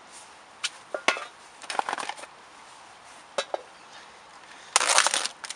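Plastic film being peeled off a plastic meat tray: a few light clicks and crinkles, then a louder crackling rip of the plastic about five seconds in.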